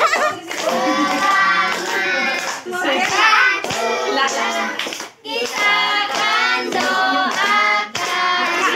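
A group singing, led by children's voices, with hands clapping along; the singing breaks off briefly three times.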